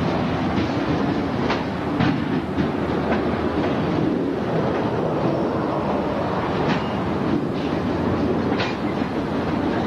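Freight train's boxcars rolling past on the yard track: a steady rumble of wheels on rail, with a few short sharp clicks from the wheels.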